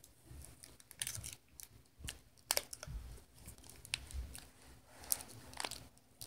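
Plastic wrapping of an L.O.L. Surprise ball being peeled and torn by hand: irregular crinkles with small sharp crackles.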